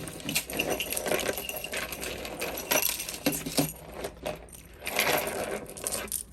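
Costume jewelry pieces, beads and chains, clinking and rattling against each other as they are rummaged through and handled, a steady run of small irregular clicks.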